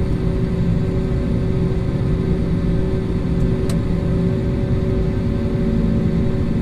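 Airliner engine noise heard inside the passenger cabin: a steady rumble with a constant hum, and one light click about halfway through.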